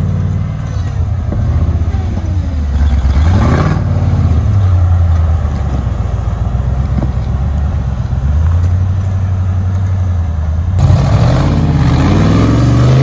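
Modified off-road 4x4 engines running under load and revving as the vehicles climb a steep dirt slope, the pitch rising and dropping. About eleven seconds in the sound changes abruptly to another vehicle's engine revving.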